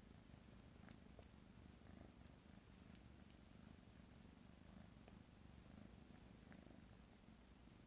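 Kitten purring softly and steadily, a low continuous rumble, with a few faint clicks.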